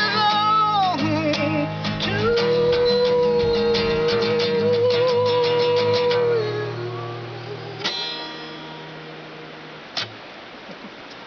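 Acoustic guitar in open D tuning strummed rapidly under a man's long held sung note, the closing of the song. The voice and strumming stop about six seconds in and the guitar rings away, with one last strum near eight seconds and a single click about ten seconds in.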